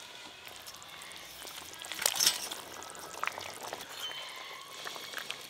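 Fried rohu fish pieces going into a pot of simmering curry broth: soft splashing and bubbling liquid, with a few light clicks about two seconds in.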